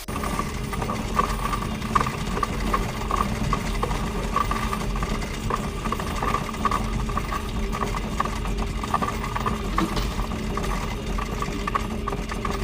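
Coin-counting machine running: a steady motor hum under a fast, continuous clatter of coins clicking through it.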